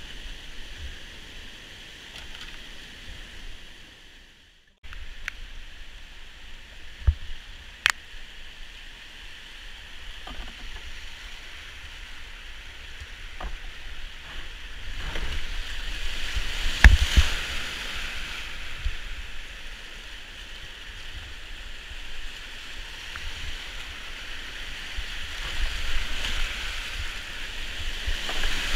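Rushing whitewater of a flooded creek's rapids heard from a kayak, with paddle strokes in the water and a few sharp knocks. The sound drops out briefly about four seconds in and gets louder in the second half as the kayak runs into the rapid.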